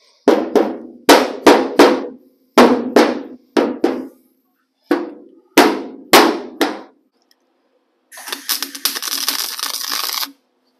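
A sand-filled dead-blow hammer strikes a steel roll pan about a dozen times in quick groups of two and three, each blow ringing briefly through the sheet metal. About eight seconds in, a wire-feed welder crackles for about two seconds, tacking the pan on.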